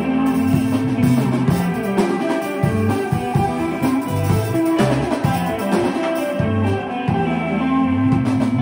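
Live rock band playing electric guitars and a drum kit, loud and continuous, with a moving low bass line under the guitars.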